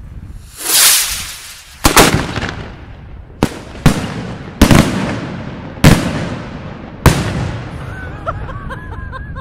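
Italian aerial firework shell fired from a mortar tube: a thump and a rushing hiss as it lifts, then seven sharp bangs spread over about five seconds, the successive breaks of a multi-break (scala-type) shell.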